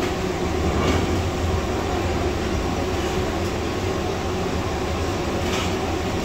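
Gas burner under a large flat kabab pan, running with a steady low roar.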